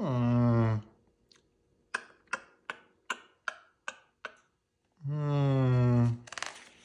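A man's voice humming a wordless 'hmm' that falls in pitch, then eight short sharp clicks about three a second, then a second, longer level 'hmm'.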